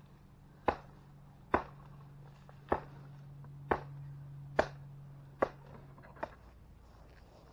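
Dead wood being struck or broken while gathering firewood: seven sharp knocks about a second apart, the last one weaker.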